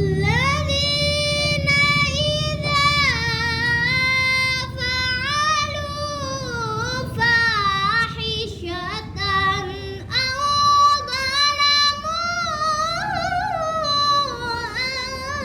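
A young girl's voice reciting the Qur'an in melodic qira'ah style: long held notes with wavering, ornamented pitch, sung in drawn-out phrases with two short breaks for breath.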